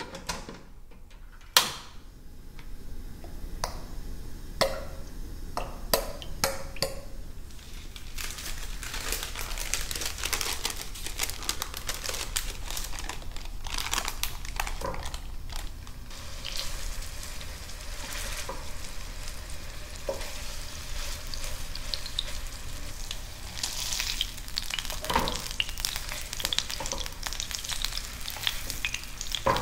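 Cooking in a pan: a few sharp knocks and clinks of a utensil in the first seconds, then from about eight seconds in food sizzling and crackling in hot oil while it is stirred, with scattered clicks and scrapes.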